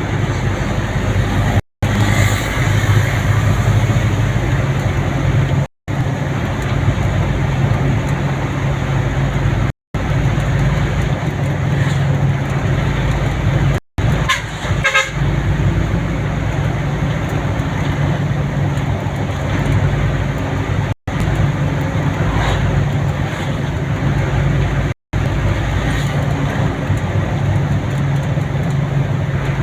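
Vehicle engine hum and road noise while travelling along a road, steady throughout. The sound cuts out sharply for an instant about every four seconds.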